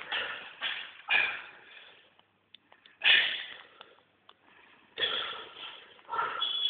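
A man breathing hard while flexing: several short, forceful exhales, a few in quick succession at the start, then one after a pause of about two seconds and two more near the end.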